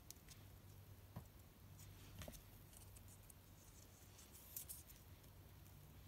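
Near silence: a few faint light taps and rustles of a small cardboard strip being handled around a marker, over a low steady hum.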